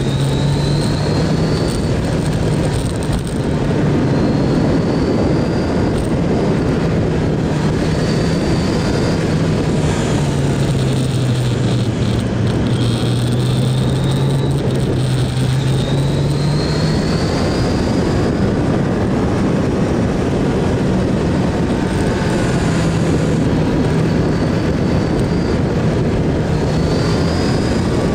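Kawasaki GPZ900R inline-four engine running under way through a run of bends, its note falling and rising with the throttle, with short rising whines every few seconds as it pulls. A steady rush of wind over the microphone runs underneath.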